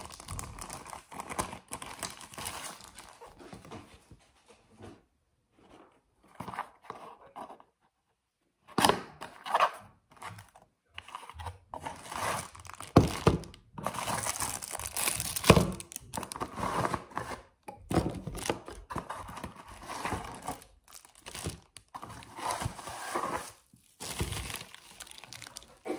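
Packaging being handled while unboxing: a paper sheet rustling, a cardboard box being opened, and bubble-wrap and plastic bags of accessories crinkling, in irregular bursts with short pauses. A couple of sharp knocks from the box or parts being set down on the desk stand out midway.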